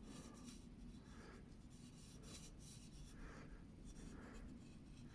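Faint, repeated short strokes of a chisel-tip marker pen rubbed along a steel cleaver's edge bevel, inking it to check the grinding angle.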